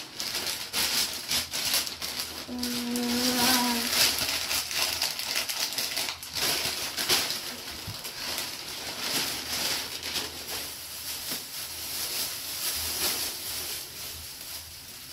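Plastic shipping mailer and the plastic bag around a gown crinkling and rustling as they are pulled open and handled, in an irregular crackle of many small crackles.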